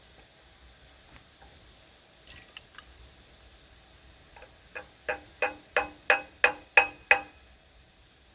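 Metal being struck with a hammer: a few light taps, then about nine sharp ringing blows in a steady run, roughly three a second, growing louder toward the end.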